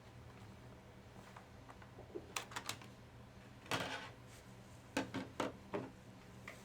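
Light plastic clicks and taps of a laptop being handled, scattered in small clusters, over a faint steady hum.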